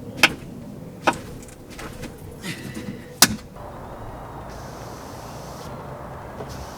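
Sharp clicks and knocks from the rear door's window glass and the new window regulator being handled and fitted together, with a brief scrape just before the loudest knock about three seconds in. A steady hiss follows.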